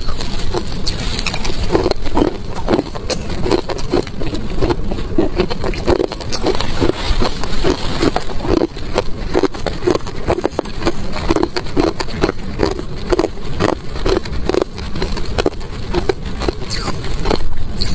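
A mouthful of crushed ice being chewed close to the microphone: steady crunching at about two to three bites a second.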